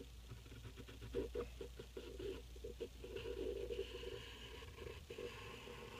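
Pencil sketching on paper: quick, faint, short scratchy strokes, with a longer run of steadier strokes a few seconds in.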